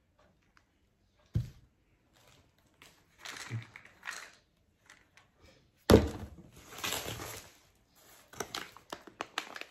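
Bottles and packets being set down on a table with a few separate thumps, between stretches of plastic packaging rustling. The loudest thump comes about six seconds in, followed by a second or so of rustling.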